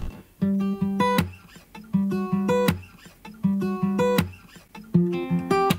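Background music: a guitar picking a short phrase of plucked notes that repeats about every second and a half.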